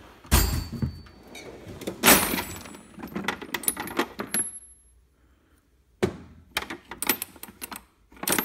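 Steel sockets and chrome wrenches clinking and clattering against each other as a hand rummages through a tool box drawer, in two spells of rattling with a short pause in the middle.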